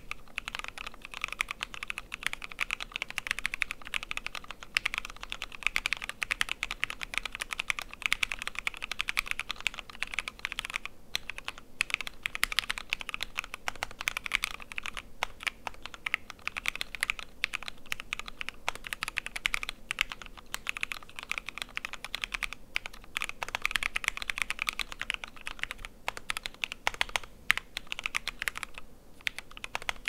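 Continuous typing on a Wonderland Alice-layout mechanical keyboard with lubed Gateron Yellow linear switches and MT3 Serika keycaps: a fast, even stream of key clacks, broken by a few brief pauses.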